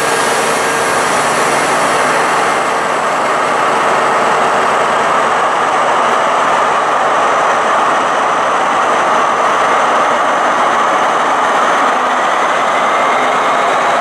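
Class 218 diesel-hydraulic locomotive with its MTU 4000 R40 diesel engine running steadily and loudly as it hauls a track-testing train slowly into an underground station. A faint rising tone comes in near the end.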